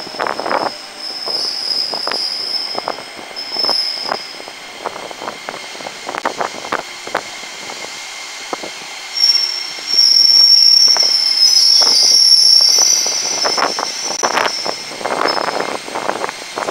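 JR 205 series electric commuter train pulling into the platform and slowing to a stop. Its wheels click over the rail joints, and a high-pitched squeal rises twice as it slows: briefly near the start, then louder and longer from about nine seconds in.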